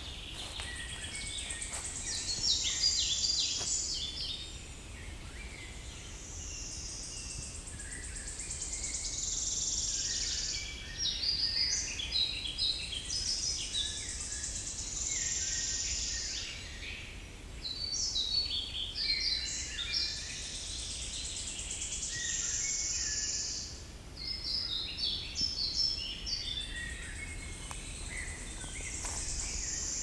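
Songbirds singing in a spring forest: phrases repeat every few seconds, a high held trill alternating with a quick run of varied notes, over a faint low background rumble.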